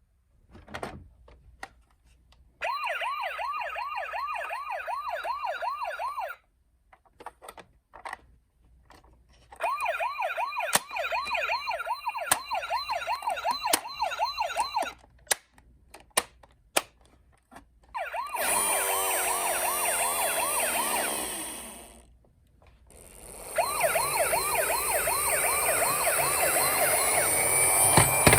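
Toy ambulance minicar's electronic siren sounding in four bursts of a few seconds each, a fast warbling wail. Short clicks and knocks come in the pauses between bursts.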